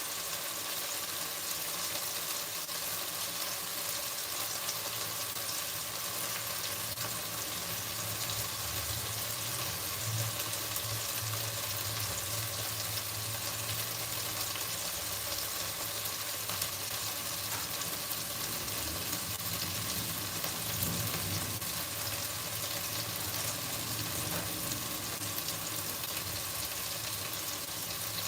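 Food frying in oil in a pan, a steady sizzle throughout.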